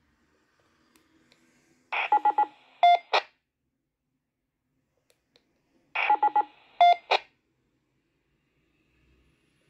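Baofeng dual-band handheld radio giving a short burst of electronic beeps, twice, about four seconds apart; each burst is a quick run of pulsing tones ending in a sharp beep and a blip.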